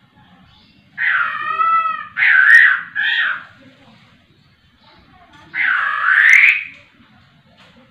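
Poksay rowo, a caged laughingthrush, calling loudly: three calls in quick succession about a second in, then one longer call with a wavering pitch near six seconds.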